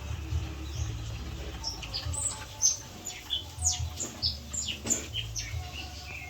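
Six-day-old piglets squealing: many short, high-pitched squeaks, each falling in pitch, coming thick and fast from about two seconds in, over a low steady hum.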